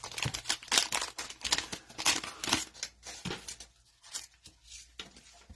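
Cellophane wrapper of a trading-card cello pack crinkling and tearing as it is opened, in a quick run of short rasps that thin out after about three seconds.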